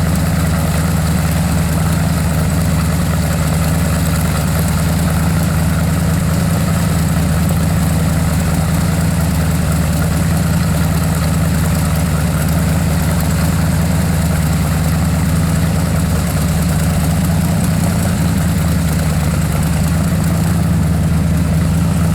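383 V8 engine idling steadily, with an even low hum and no change in speed.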